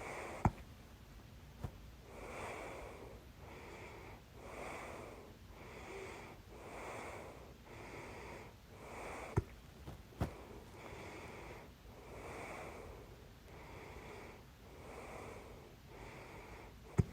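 A person's loud hiccups: five sharp, sudden hics, the strongest about half a second in, around nine seconds in and at the very end. Between them come steady, audible breaths about once a second.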